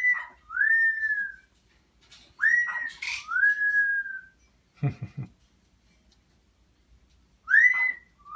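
Pet parrot whistling a two-part call three times, each a quick rising note followed by a longer note that glides up and then slowly down. About halfway through there is a short, deeper sound of two or three quick pulses.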